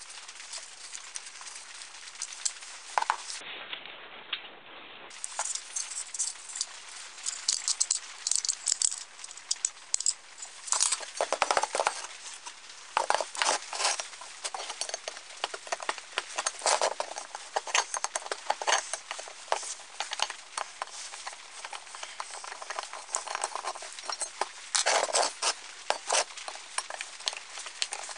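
Rusty metal parts of a Game Junior #1 camp stove being handled and worked with a screwdriver: irregular clicks, taps and scrapes of metal on metal, busier from about ten seconds in.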